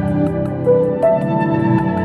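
Background music: sustained chords with a slow melody line over a light, steady tick.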